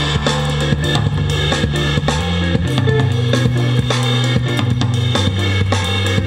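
Rock music with a full drum kit, guitar and bass, playing steadily at a constant loudness.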